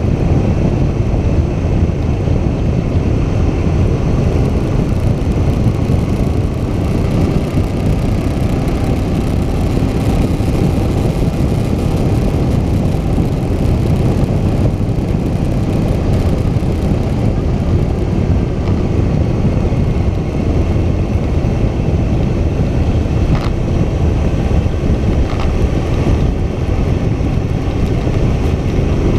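Moto Guzzi Stelvio motorcycle cruising at steady speed, its V-twin engine running under a loud, steady rush of wind and road noise, with a brief rise in engine pitch near the end.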